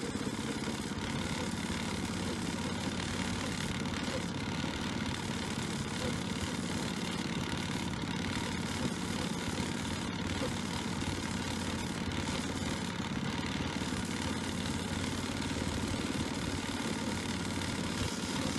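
Petrol engine of a miniature railway petrol-mechanical shunter running steadily as the locomotive travels along the track, heard from on board.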